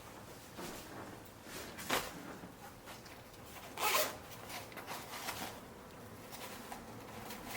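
Zipper on a nylon backpack being pulled, with short rasps about two seconds and four seconds in, over light rustling of the pack's fabric.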